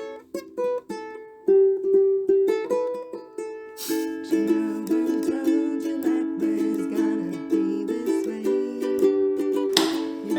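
Background music: a plucked-string tune opening with single notes, with more instruments joining in about four seconds in.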